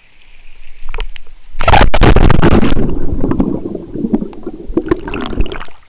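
A loud splash as someone plunges into a swimming pool, followed by muffled underwater bubbling and churning heard from below the surface. The churning cuts off sharply near the end.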